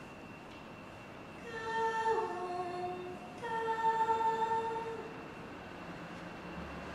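A woman's voice holding two long notes. The first slides down to a lower pitch partway through, and the second is held level.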